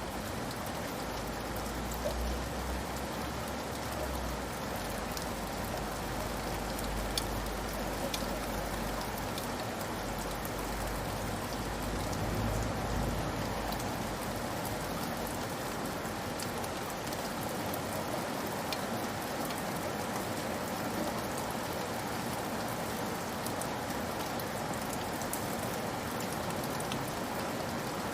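Steady rain falling on a roof, a dense even patter with scattered sharper drop ticks. A low rumble sits under it for about the first half, then fades out.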